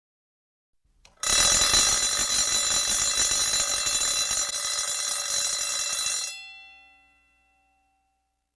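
A mechanical bell alarm, of the alarm-clock kind, rings loud and fast for about five seconds. It then stops abruptly, and its bell tones ring on and fade out.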